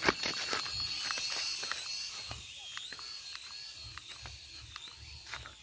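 High-pitched whine of a pocket-sized RC airplane's tiny electric motor and propeller, its pitch swelling and dipping every half second or so, with scattered clicks.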